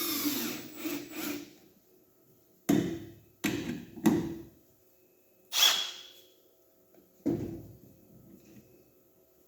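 A cordless drill driving a screw into wood stops about a second in. Several separate knocks and clunks of wood and tools being handled follow.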